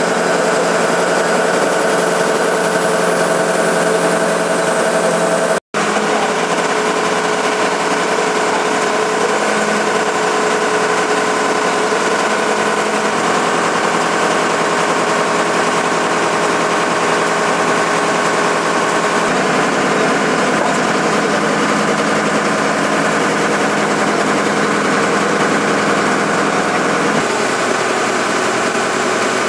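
Engine of a horizontal directional drilling rig running steadily. The sound cuts out for an instant about six seconds in, and its low note shifts about two-thirds of the way through and again near the end.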